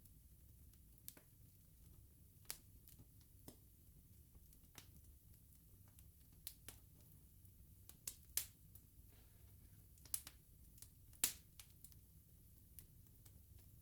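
Bonfire of burning logs crackling: scattered sharp pops and snaps at irregular intervals, with a couple of louder snaps about eight and eleven seconds in.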